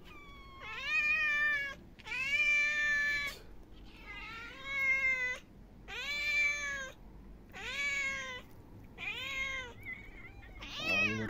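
A domestic cat meowing insistently for food, seven long meows in a row, each rising and then falling in pitch, about one every one and a half seconds.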